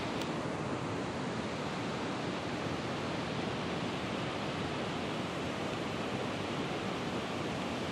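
Steady rush of flowing river water, an even hiss that holds without a break.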